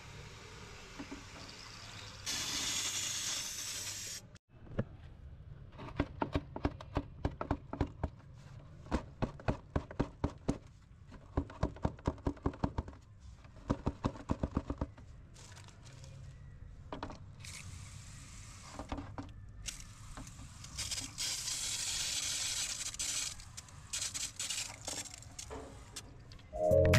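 Sand-and-stone mix being poured and worked in a tub: bursts of gritty hiss as it pours, and between them quick runs of sharp clicks as stones knock together and against the tub.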